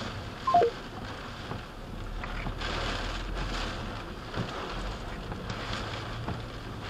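Heavy rain and strong wind beating on a stopped car, heard from inside the cabin as a steady rush, with the windshield wipers sweeping and a few faint knocks. A short falling chirp about half a second in is the loudest moment.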